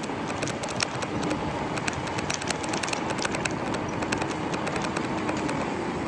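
Steady running noise of a car on the move, with many small irregular clicks and rattles through it and a faint steady hum.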